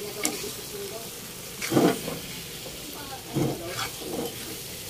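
A spatula stirring a thick pork-and-vegetable stew in a metal pan, with a few loud scrapes against the pan (the loudest about two seconds in) over a low, steady sizzle.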